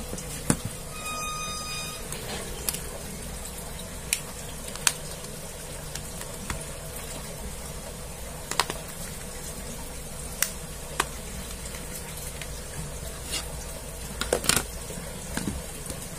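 Scattered sharp plastic clicks and taps as a smartphone's back cover is pried off and the phone is handled, over a steady background hiss. A brief faint tone sounds about a second in.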